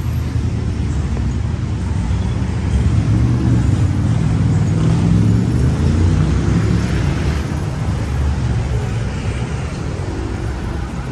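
City road traffic: a steady low rumble of vehicle engines and tyres, swelling for a few seconds partway through as vehicles pass.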